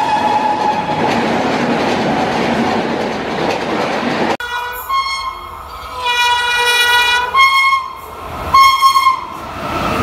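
An Indian Railways coach train rushing past at speed, a loud steady rush of wheels and air. After an abrupt cut about four seconds in, an approaching Indian Railways locomotive sounds its horn in a series of blasts: short honks, one long blast of over a second, and the loudest blasts near the end.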